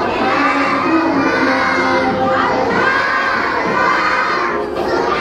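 A large group of young children shouting together in chorus, in phrases that break briefly about two seconds in and again near the end.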